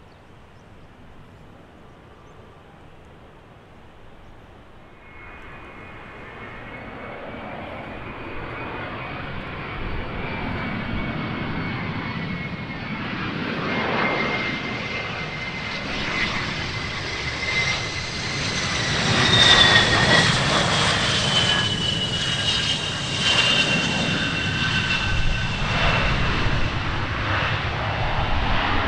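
Bombardier Challenger 350 business jet coming in to land, its two turbofan engines growing steadily louder. A high turbine whine drops in pitch as it passes, about two-thirds of the way through, and the engine noise stays loud afterwards.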